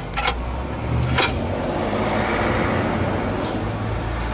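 A motor vehicle's engine rumbles steadily, swelling about a second in and easing slightly near the end. A single sharp metal click comes about a second in.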